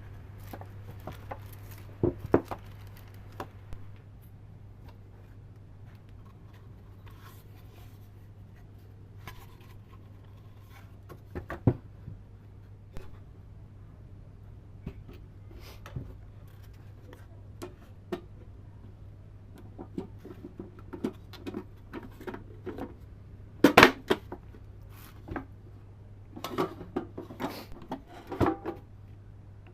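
Irregular clicks, taps and knocks of small hard parts being handled and worked on, with the loudest knocks toward the end, over a steady low hum.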